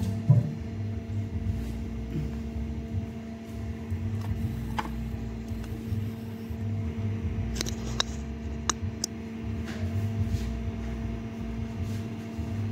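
Steady low machine hum with a light rumble, over which a few short clicks and taps of hands handling things at a kitchen sink are heard, most of them between about seven and nine seconds in.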